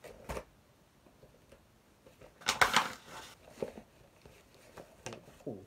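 Paper and plastic packaging being handled as a parcel is opened: a small knock, then a loud crackling rustle lasting under a second about two and a half seconds in, followed by softer rustles.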